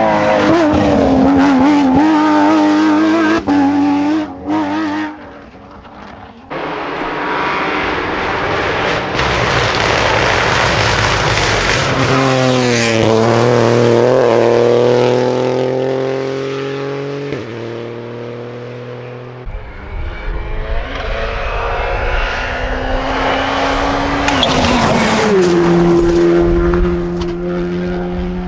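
Porsche 992 GT Rally's flat-six engine at high revs as the car passes on a rally stage, its note climbing and stepping with quick gear changes, with tyre noise. The sound breaks off abruptly a few times, where the footage jumps between passes.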